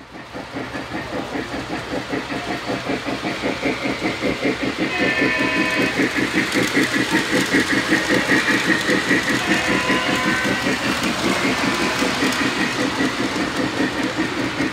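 Model Polar Express 1225 steam locomotive's sound system chuffing steadily, about four chuffs a second, fading in at the start, with the running noise of the train on the track. A higher tone briefly joins in twice in the middle.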